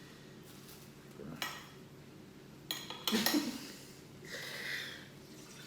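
Knife and cutlery cutting into a baked pastry on a plate: a couple of light clicks, a louder clatter about three seconds in, then a short scrape against the plate.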